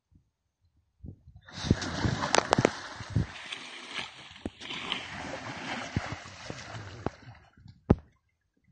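An Asian elephant churning the water of a muddy pond with its body and trunk. There are about six seconds of sloshing and splashing with many sharp splashes through it, and one loud single splash near the end.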